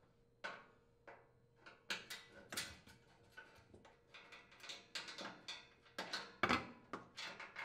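Phillips screwdriver unthreading a screw from the enamelled steel bottom panel of a gas range oven: a quiet, irregular run of small clicks and metallic scrapes as the screw turns.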